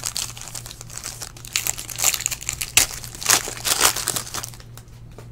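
Foil wrapper of a Panini Black Gold basketball card pack crinkling and tearing as it is ripped open by hand, loudest about two to four seconds in, then dying away.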